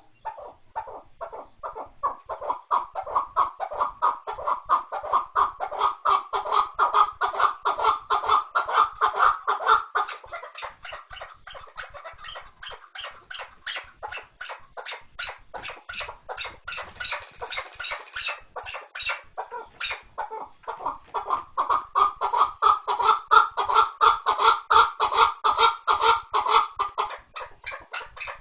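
Chukar partridge calling: a long run of rapid, evenly repeated notes that grows louder twice, for several seconds each time.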